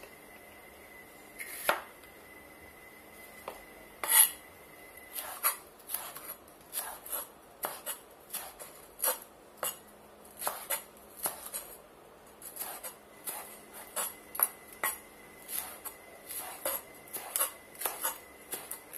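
Chef's knife slicing bell pepper into strips on a bamboo cutting board: the blade knocks on the board in an uneven run of strokes, about two a second, with two louder knocks near the start. A faint steady high tone hums underneath.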